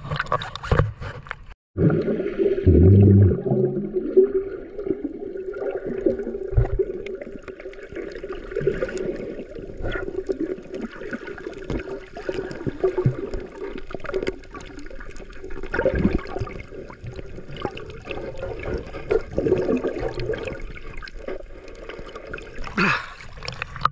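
Sea water gurgling and sloshing close to the microphone, with a steady low hum underneath, after a brief cut near the start.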